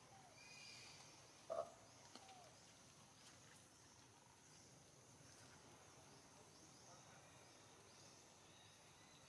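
Quiet outdoor ambience with scattered faint bird chirps and one short, louder animal call about one and a half seconds in.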